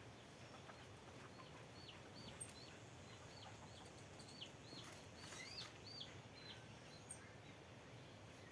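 Faint bird calls: a quick run of about a dozen short chirps in the middle of the stretch, over quiet outdoor background noise.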